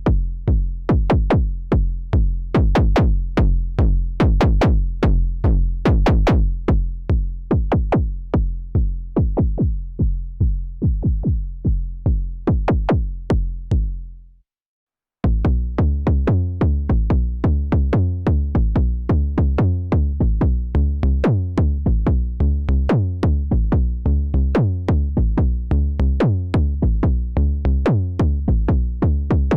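KORG Volca Kick analog synthesizer playing a sequenced pattern of punchy kick drums and low bass notes, each hit with a sharp click on top. About halfway through, the pattern fades out to a second of silence. A new pattern then starts with deeper, longer bass notes under the kicks.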